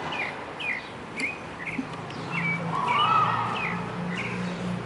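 Birds chirping: many short, quick, falling chirps repeated throughout, with a low steady hum coming in about halfway.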